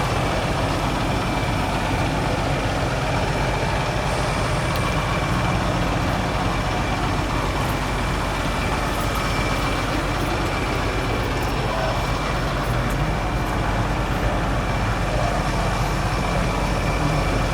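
Truck engine running steadily, a low even rumble with a thin high whine over it.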